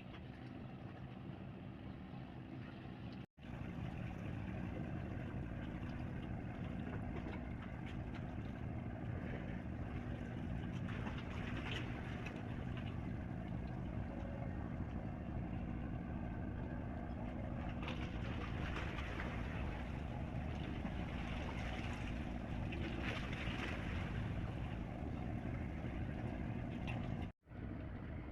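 Fast passenger ship's engines running with a steady low drone, under a wash of wind and water noise. The sound cuts out for an instant twice: about three seconds in and near the end.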